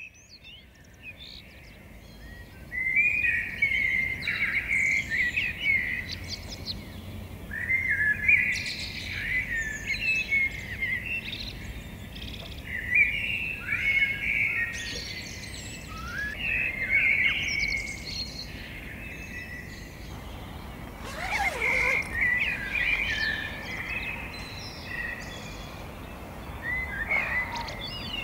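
Songbirds singing in a dawn chorus: chirping, warbling song phrases of a few seconds each follow one after another, over a faint low background rumble.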